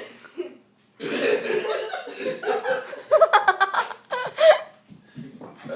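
People laughing hard in quick pulsing bursts, which fade out about three quarters of the way through.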